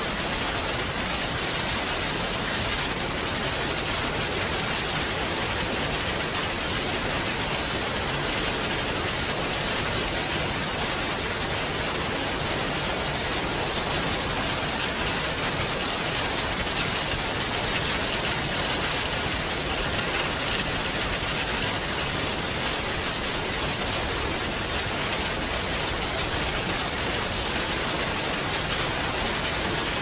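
Steady rain: a dense, even hiss of many drops landing, with no let-up or change.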